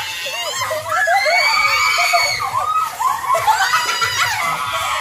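Several people screaming and shrieking at once in high voices, with overlapping cries that rise and fall in pitch and some long held shrieks.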